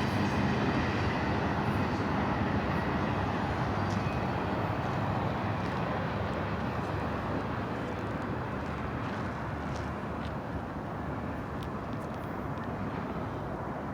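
Cars of a BNSF intermodal freight train rolling along the rails, a steady rumble that fades gradually as the train moves away.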